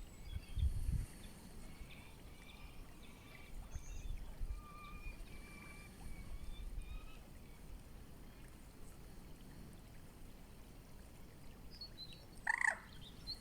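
Faint flowing river with scattered high bird calls, and one brief, louder bird call near the end.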